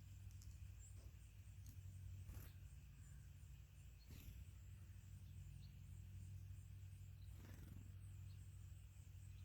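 Near silence: a faint steady low hum, with a few faint ticks and scattered faint high chirps from small birds.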